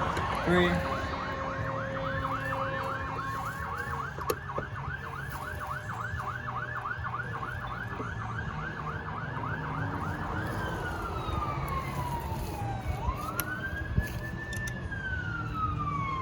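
Emergency vehicle siren in a fast yelp, about three sweeps a second. About ten seconds in it changes to a slow wail that falls, rises and falls again. A steady low rumble and a few sharp clicks sit underneath.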